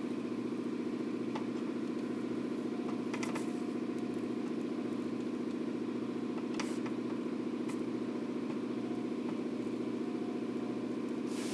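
Steady machine hum, like an electric motor or fan running at a constant speed, with a few faint clicks and taps over it.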